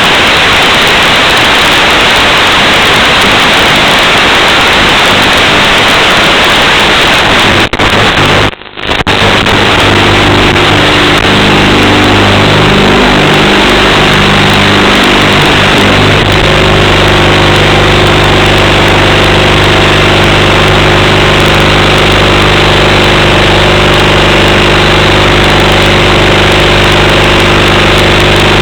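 Loud, steady hiss like radio static. It cuts out briefly about eight and a half seconds in, then comes back with a steady low hum of several tones underneath.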